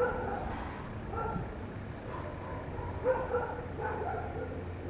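A dog barking several times, short yips with a couple close together about three seconds in, over a low steady hum.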